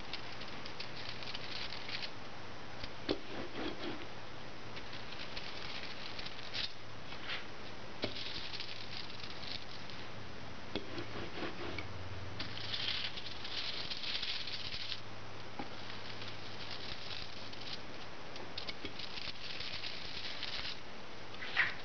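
Rubber brayer rolling printing ink over an aluminium-foil lithography plate, making a crackling patter in repeated rolling strokes as the tacky ink lifts off the foil. A sharp click comes near the end.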